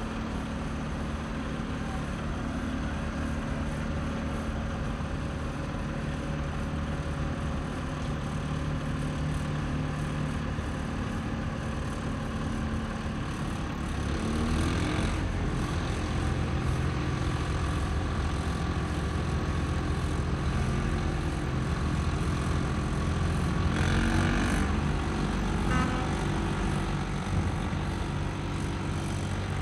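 Heavy diesel machinery running steadily with a low drone, growing louder about 14 seconds in. Two brief louder, higher-pitched surges come at about 15 and 24 seconds.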